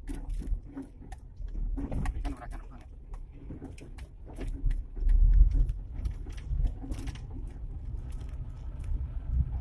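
Cab noise inside a Suzuki Carry pickup rolling slowly over a rough, unpaved lane: a low engine and road rumble with frequent rattles and knocks from the body, loudest about five seconds in.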